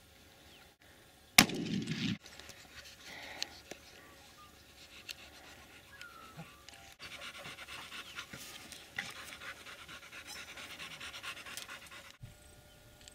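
English springer spaniel panting, a quick run of short breaths in the later part. About a second and a half in there is a single loud, sharp bang with a brief heavy rumble after it.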